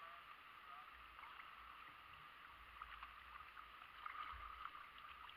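Near silence: faint steady rippling of creek water around a kayak, with a few soft ticks.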